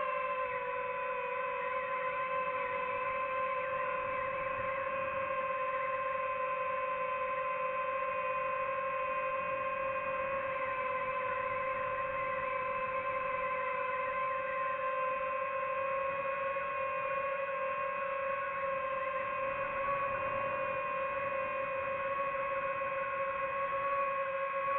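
DJI FPV quadcopter's motors and propellers giving a steady high whine in flight, its pitch wavering slightly with throttle.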